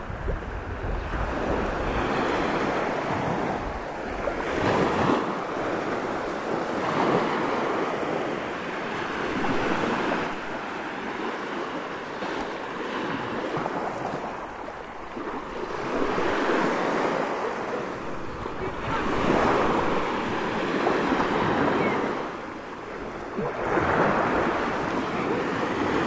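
Small waves breaking and washing up onto a sandy beach, the rush of surf swelling and ebbing every few seconds.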